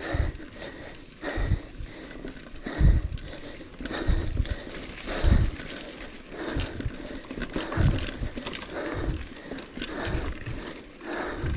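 Mountain biker's heavy breathing while riding a cross-country trail, a hard breath a little more than once a second, with rumbling trail and bike noise underneath.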